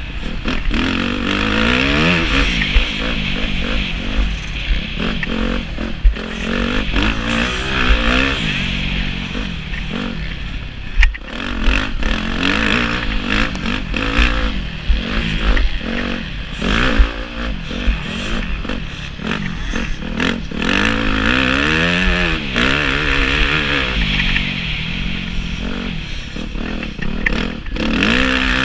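Motocross dirt bike engine revving up and down over and over while being ridden, heard from a helmet-mounted camera, with a few sharp knocks now and then.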